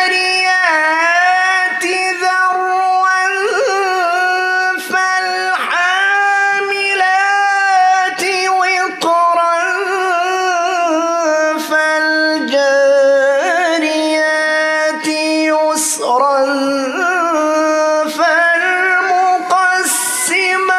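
A male Quran reciter chanting in the melodic mujawwad style of tajwid recitation. One solo voice draws out long, ornamented notes that bend and waver, with short breaks for breath between phrases.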